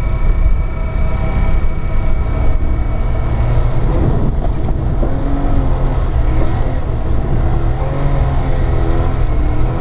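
Car engine running as it drives along a dirt track, with a rush of splashing water and mud about four seconds in as it ploughs through a flooded stretch. The engine note then rises and falls as the driver works through the mud.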